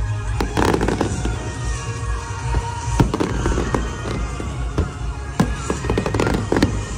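Fireworks going off in a display: repeated bangs with crackling clusters, the strongest about half a second in, at three seconds and around five and a half to six and a half seconds. Music plays underneath throughout.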